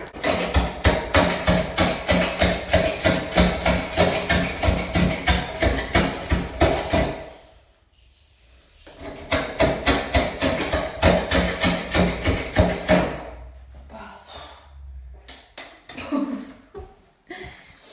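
Glass scraper blade worked in quick strokes across a roof-window pane, taking off a stuck-on window-paint picture. It goes in two stretches with a short stop about seven seconds in, then tapers off.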